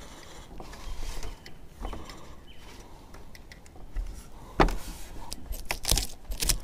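A metal spoon scraping the scales off a sucker fish clamped on a wooden scaling board, in repeated short strokes, with a few louder scrapes in the second half.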